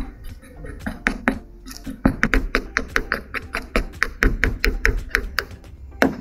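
Tiny metal whisk clicking and scraping against the sides of a small bowl as batter is whisked. The clicks come quicker and louder from about two seconds in, roughly five a second.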